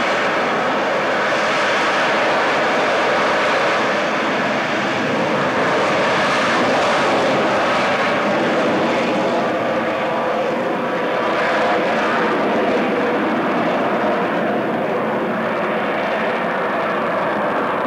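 Harrier jump jet's Rolls-Royce Pegasus vectored-thrust turbofan running at high thrust while the jet hovers and flies slowly with its nozzles turned down, a loud, steady jet noise with a whine in it. The highest part of the sound thins out near the end as the jet climbs away.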